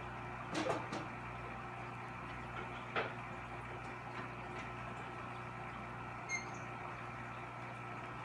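Steady hum of aquarium equipment, with a few short soft clicks about a second in, at three seconds and just after six seconds.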